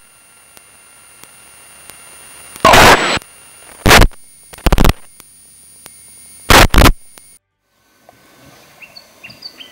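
Static on an aircraft's radio or intercom audio feed: a faint hiss with thin steady whines, broken by four loud bursts of noise, then cutting off suddenly about seven and a half seconds in.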